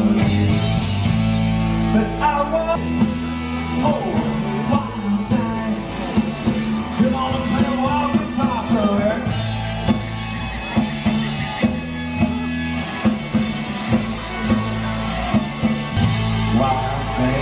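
A rock band playing with a lead singer, guitar and bass over a steady beat.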